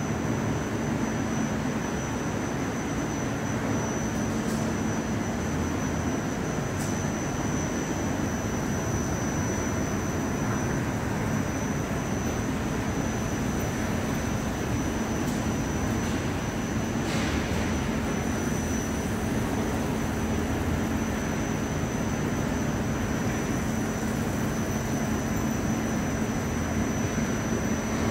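Steady drone of a 600 mm-wide industrial frying line and factory machinery running, a low hum under an even rush of noise with a thin, constant high whine. A few faint ticks sound over it.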